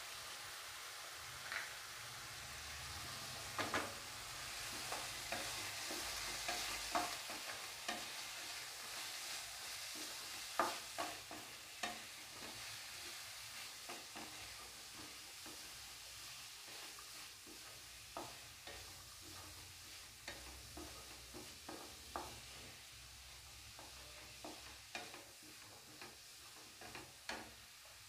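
Diced potato, green beans and grated carrot frying in oil in a metal kadai with a soft sizzle, stirred with a wooden spatula that knocks and scrapes against the pan at irregular moments. The sizzle is strongest in the first several seconds and slowly fades.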